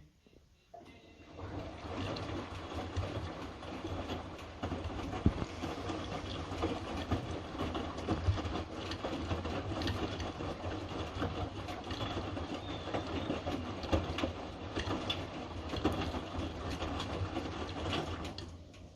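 Hotpoint Fastwash 60 washing machine in its main wash: the motor turns the drum and the load tumbles with a steady hum and rattling clicks. It starts about a second in and stops near the end, one turn of the tumble cycle.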